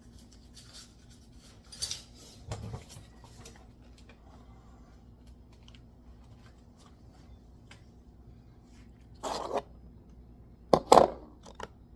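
Hands handling small parts and their packaging: scattered light rustles and scrapes, then a few sharp clacks near the end.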